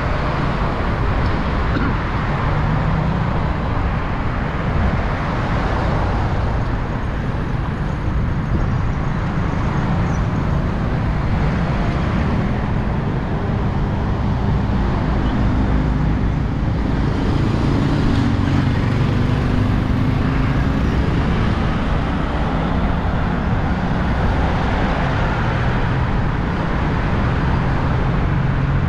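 Steady road traffic on a busy city boulevard: cars and buses going by in a continuous wash of tyre noise and engine hum.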